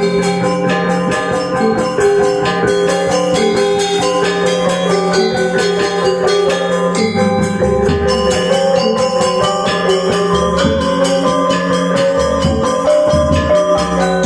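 Balinese gamelan gong ensemble playing: bronze metallophones and gongs ring in fast, dense interlocking strokes over sustained tones, with deep low notes coming in about seven seconds in.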